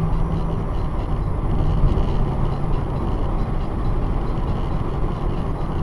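Steady road and engine noise of a car cruising on a highway, heard from inside the cabin through a dashcam's microphone.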